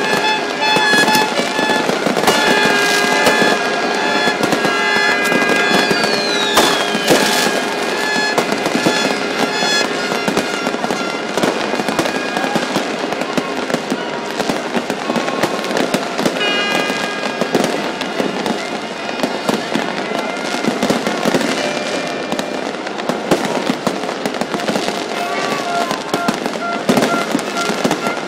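Continuous crackling and bangs of a large fireworks display heard from within the crowd, with many held horn-like tones sounding over it; one high tone glides downward about six seconds in.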